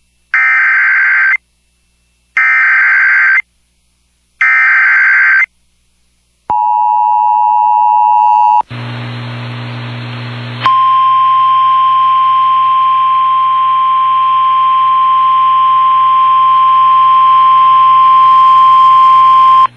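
NOAA Weather Radio Emergency Alert System signal for a tornado emergency: three one-second bursts of screeching digital header tones. After a short stretch of other tones and a brief hiss, a steady single-pitch warning alarm tone sounds for about nine seconds.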